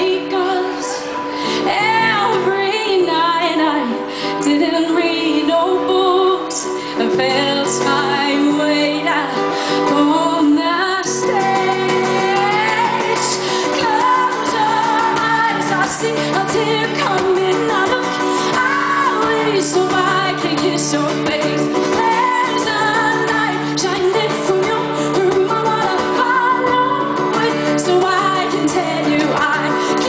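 A woman singing live while strumming an acoustic guitar, her voice sliding between long held notes over the steady chords.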